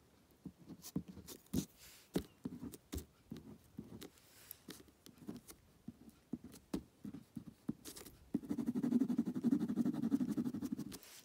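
Ballpoint pen drawing on paper over a hard board: scattered short strokes and taps, then about eight seconds in, nearly three seconds of rapid back-and-forth scribbling as an area is shaded in.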